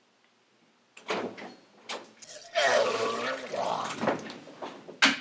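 A man retching and vomiting into a toilet: a couple of short heaves, then one long strained retch, and two more sharp heaves near the end.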